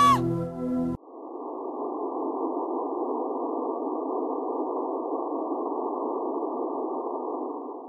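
The logo's music stops abruptly, then a steady, muffled hiss like filtered static fades in about a second in and holds evenly without tone or rhythm, cutting off just before the end.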